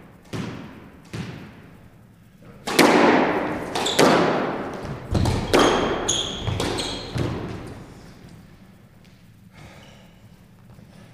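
Squash rally: the rubber ball cracking off rackets and the court walls, each hit ringing in the enclosed court, with brief shoe squeaks on the wooden floor. A couple of lighter hits come first, then a run of sharp hits for about four seconds before the rally ends.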